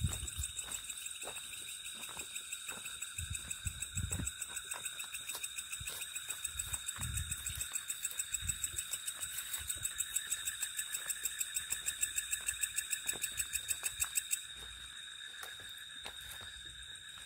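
Night chorus of crickets and other insects: a steady high ringing with a fast, even pulsing chirp that grows louder and then stops abruptly about two-thirds of the way through. Soft footfalls thud now and then underneath.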